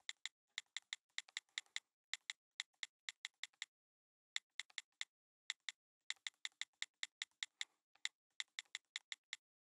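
Light keyboard typing clicks: quick keystrokes about five a second, in runs of several with short pauses between.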